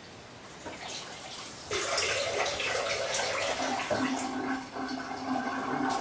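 Water pouring into a cooking pot, starting a little under two seconds in and running steadily until it stops at the end.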